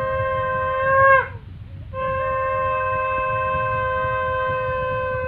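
A conch shell (shankha) blown in long, steady, horn-like notes: one ends about a second in with a drop in pitch, and after a short breath another long note starts and holds. This is ceremonial conch blowing at a Hindu rite.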